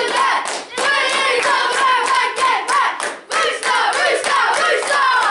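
A huddle of young boys clapping fast and chanting together in high voices.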